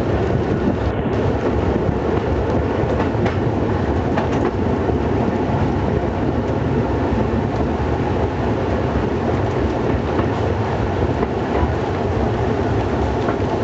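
Metre-gauge museum train under way behind the diesel locomotive V1, heard from the open end platform of the first coach. It makes a steady running noise of the engine and wheels, with the clickety-clack of the wheels over rail joints.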